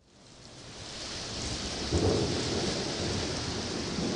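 Steady rain, fading in over the first second or so, with a low rumble of thunder about two seconds in.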